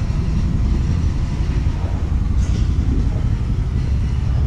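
A loud, steady low rumble, with nothing sharp or tonal above it.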